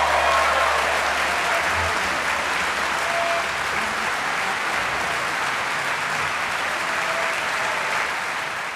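Concert hall audience applauding steadily, starting to fade near the end.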